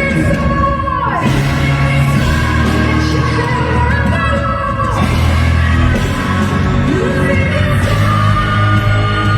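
Live female vocalist belting powerful held notes over band and orchestral backing. The notes slide down and break off about a second in and again around five seconds in.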